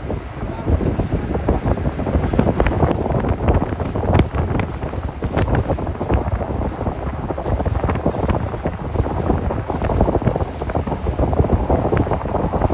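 Wind buffeting the microphone in loud, uneven gusts.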